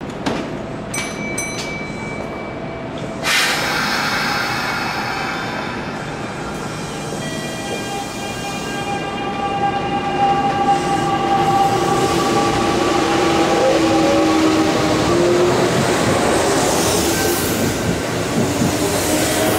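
Kintetsu electric train running into the station: rail noise with several steady whining tones that start suddenly about three seconds in and shift in pitch, growing louder toward the end. Two short high beeps sound about a second in.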